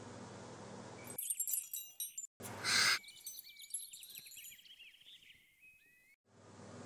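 A steady hiss with a low hum, then from about a second in high tinkling chime-like tones, a brief loud burst of noise, and a run of short rising chirps that cut off about six seconds in.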